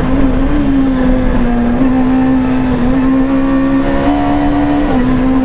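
Renault Clio Super 1600 rally car's 1.6-litre four-cylinder engine heard loud from inside the cabin, running hard at a steady pitch that rises and dips slightly a few times, over tyre and road noise.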